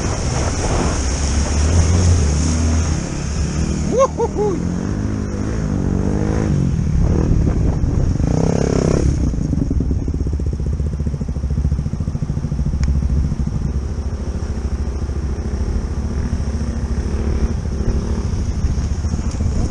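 Dirt-bike engine running while riding through a shallow rocky stream, with rushing water and the engine's pitch rising and falling in the first half. After about ten seconds the water fades and the engine settles to a steady idle.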